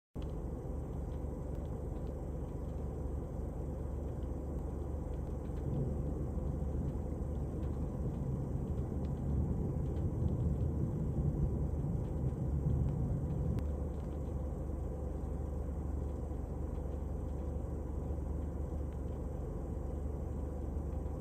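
Gusty wind buffeting the microphone, a steady low rush that grows stronger for several seconds in the middle, under a thunderstorm's shelf cloud.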